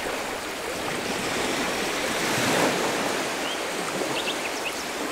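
Ocean surf washing up onto a sandy beach: a steady rush of breaking water that swells briefly about halfway through.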